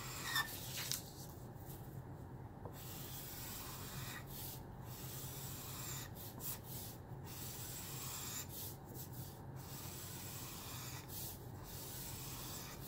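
Felt nib of a nearly dried-out alcohol marker rubbing across paper in repeated long strokes, with short breaks between them as the nib lifts.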